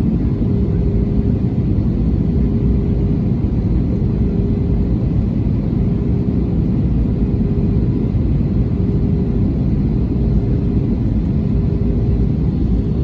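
Airliner engines running: a steady low rumble with a faint, even hum over it.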